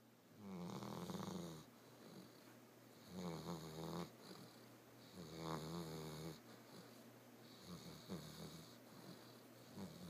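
Snoring: five slow breaths about two and a half seconds apart, each lasting about a second. The first three are fuller and the last two fainter and more broken.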